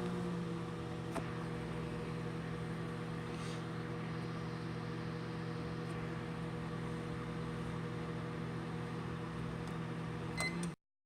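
Microwave oven running with aluminum foil inside: a steady electrical hum, with a sharp click about a second in and a few more clicks near the end, then the sound cuts off abruptly.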